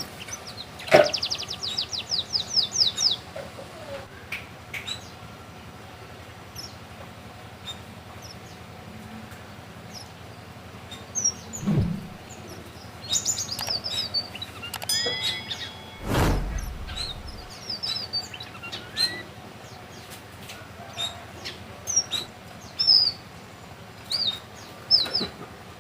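Red avadavat (strawberry finch) singing: short high chirps and whistled notes with a fast run of trilled notes near the start, song learned from canaries. Two dull thumps break in about halfway through.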